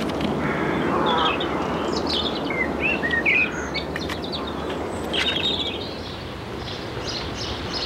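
Small garden birds chirping in short, scattered calls and quick little pitch glides over steady outdoor background noise.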